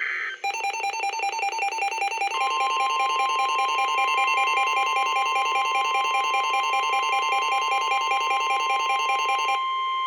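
NOAA Weather Radio warning activation. The tail of a SAME digital header burst gives way to the weather radio's rapidly pulsing alert alarm. About two seconds in, the steady 1050 Hz warning alarm tone joins it. The pulsing alarm stops near the end while the steady tone holds on, the signal that a warning, here a flood warning, is about to be read.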